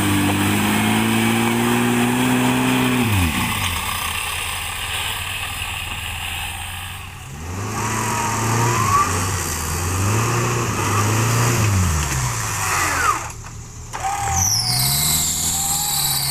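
Engine of a lifted Suzuki off-roader revving and easing off in repeated surges as it claws up a muddy slope on a winch cable anchored to a tree. Near the end a high, wavering whine joins in.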